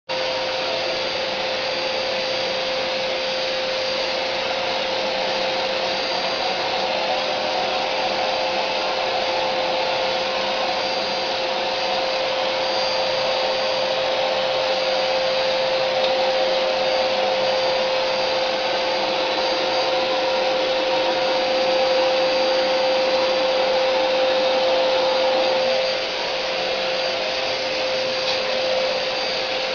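Vacuum cleaner running steadily, its motor giving a constant whine over the rush of air. The level dips briefly near the end.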